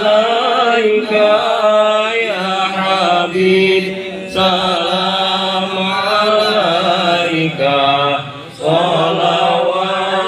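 Melodic Islamic religious chanting in long, ornamented, wavering phrases, with short breaks for breath about four and eight and a half seconds in.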